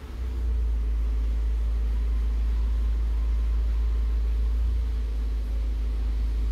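Peugeot Expert van's diesel engine running steadily, a low, even rumble.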